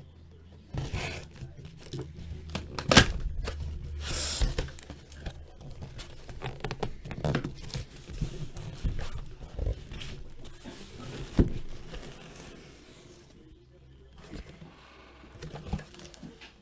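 A sealed cardboard box of trading cards being opened by hand: tearing, scraping and crinkling of cardboard, with sharp knocks as the inner boxes are handled. The loudest knock comes about three seconds in, and another strong one near eleven seconds.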